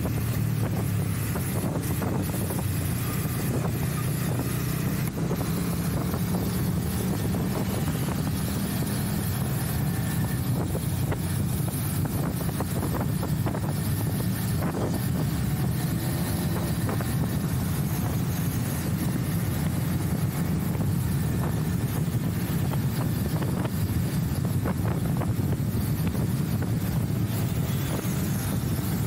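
Motorcycle ridden at a steady pace, its engine running as a continuous low drone under a steady rush of wind on the microphone.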